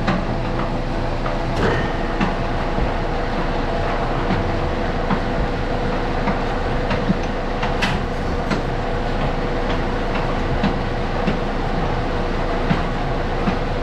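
Barn cleaner running: an electric drive pulling a paddle chain through the manure gutters, with a steady hum and irregular metal clanks and knocks.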